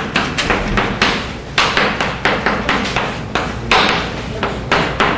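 Chalk on a blackboard: an uneven run of sharp taps and short scrapes, one for each stroke of the Japanese characters being written.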